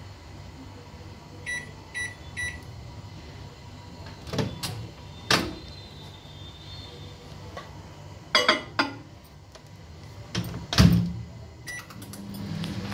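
LG convection microwave oven being set and started: three short keypad beeps, then clicks and knocks as the door is opened, and the door shut with a loud thump about eleven seconds in. Another beep follows, and the oven starts running with a steady low hum near the end.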